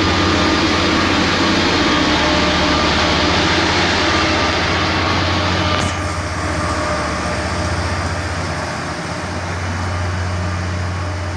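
Plasser & Theurer Unimat Compact 08-275/3S track tamping machine running along the rails, its diesel engine giving a steady low drone. About halfway in, the higher noise drops off suddenly and the sound carries on a little quieter as the machine moves away.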